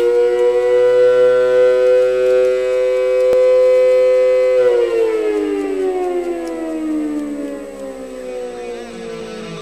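Mechanical air-raid siren sounding a steady two-note chord, then winding down and sliding slowly lower in pitch over the last five seconds.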